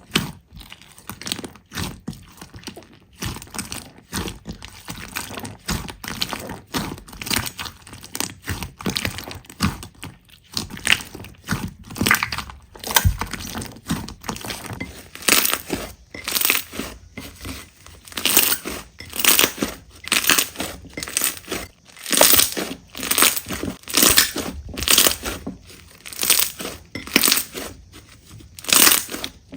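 Slime being mixed and squeezed by hand: a steady run of short, noisy squishes, roughly one a second, getting louder about halfway through.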